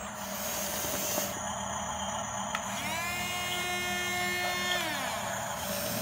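Small electric motor of a toy RC bulldozer whining as it drives: the whine rises about three seconds in, holds for a couple of seconds, then winds down.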